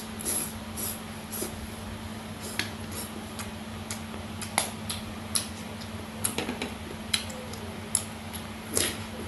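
A person eating with their fingers: scattered short wet smacks and clicks of chewing and of picking food from the plates, with a steady low hum underneath.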